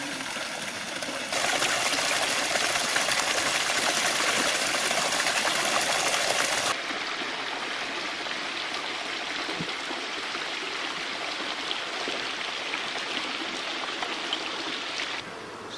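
Water gushing and splashing from an outdoor standpipe tap, loud and steady; about seven seconds in it drops suddenly to a quieter steady rush of running water.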